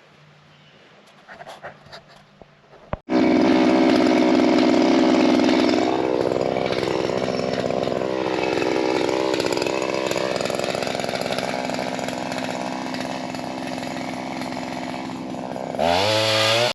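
Pole saw on a Shindaiwa M230 multitool, its small two-stroke engine running loudly with its pitch wavering up and down as it is worked on tree limbs. It comes in suddenly about three seconds in, after a few near-quiet seconds.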